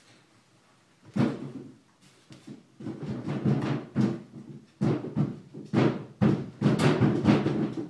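Irregular hollow knocks and thumps of wooden furniture being handled and bumped, coming thick and fast after the first second.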